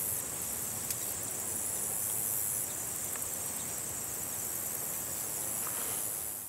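Insects chirring steadily in a high, even pitch, with a faint click about a second in.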